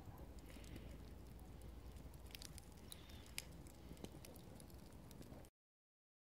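Open wood fire crackling, with scattered sharp pops and ticks over a low rumble. The sound cuts off to dead silence about five and a half seconds in.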